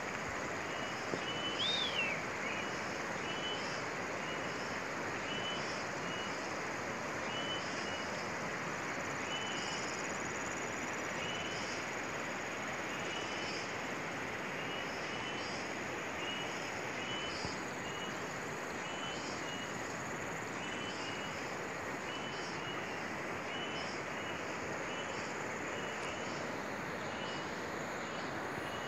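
Steady rush of flowing river water, with a short chirp repeated about once a second over it and one higher whistled call about two seconds in.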